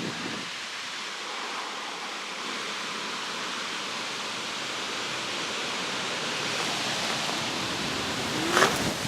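Steady rushing noise, like wind on the microphone, with a short rising squeal about eight and a half seconds in.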